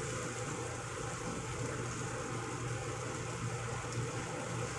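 Luffa and chicken in sauce simmering in a frying pan, a steady bubbling hiss, as it is stirred with a wooden spatula.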